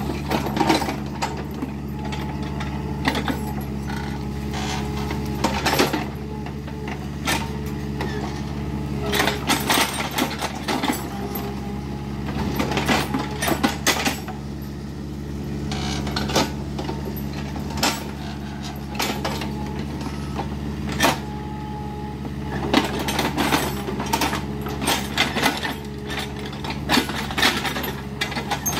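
Kubota mini excavator's diesel engine running steadily under load, with frequent sharp cracks and knocks as it works through brush and trees.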